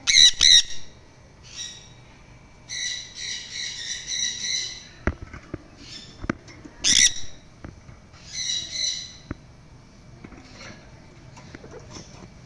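Sun conure giving loud, harsh squawking calls in bursts: a quick double call at the start, a run of calls a few seconds in, one more around the middle and a short run after it. Between the bursts come a few sharp clicks.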